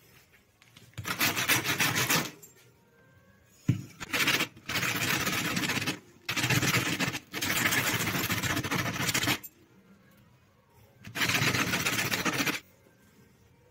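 Hand sanding: a small part scraped back and forth on a sheet of sandpaper in about six spells of a second or two each, with short pauses between them and one sharp click in the gap around a third of the way in.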